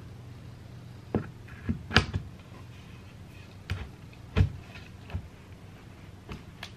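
Irregular knocks and clicks of particleboard drawer panels being handled and fitted together while assembling an IKEA MALM dresser drawer, about eight in all, the loudest about two seconds in and again past four seconds, over a low steady hum.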